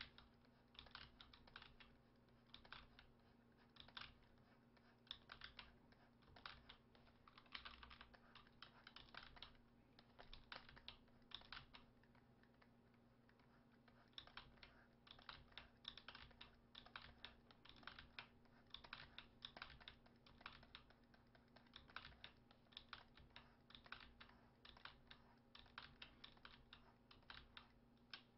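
Faint, quick clicks and taps in irregular clusters from working at a computer with a pen tablet and keyboard, pausing for a couple of seconds about halfway. A faint steady hum runs underneath.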